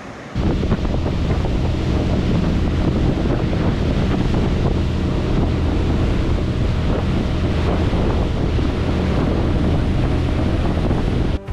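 A boat's motor running under way, with heavy wind buffeting the microphone and water rushing and splashing. The sound cuts in suddenly about half a second in and stops abruptly just before the end.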